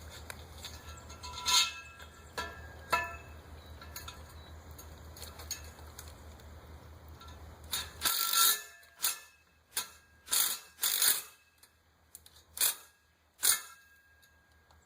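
Metal tools and gate hardware being handled: a steady low hum and a few light clicks, then the hum stops about eight seconds in and a run of sharp, irregular metallic clicks and clinks follows.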